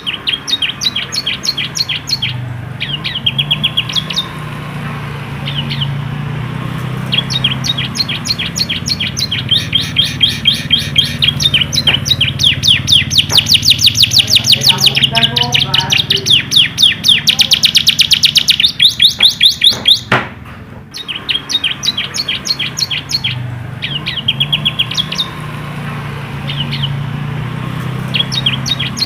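Canary singing a long song of rapid trills, strings of quickly repeated high notes that speed up and get louder in the middle, with a brief pause about two-thirds of the way through before it starts again. A steady low hum runs underneath.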